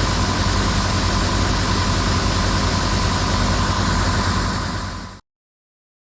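Heavy diesel farm machinery engine running steadily, with a faint steady whine above it. It fades out near the end and the sound stops abruptly.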